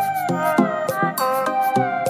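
Background music: a gliding, pitched lead melody over a steady drum beat.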